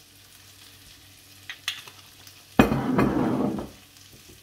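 Wooden spoon stirring oiled, spiced chicken pieces in a glass bowl: a couple of light knocks, then a louder wet, squelching stretch of mixing about two and a half seconds in that lasts about a second.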